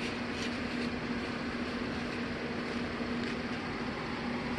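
A steady mechanical hum with one constant low tone under an even hiss, and a few faint ticks.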